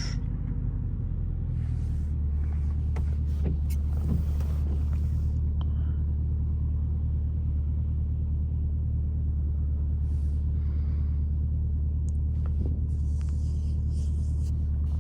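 SRT Jeep's V8 engine running with a steady low rumble, heard from inside the cabin, with no revving up or down.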